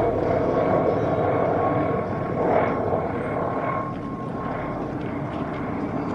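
A small helicopter flying overhead: a steady rotor and engine sound with a thin high whine, slowly growing fainter as it moves away.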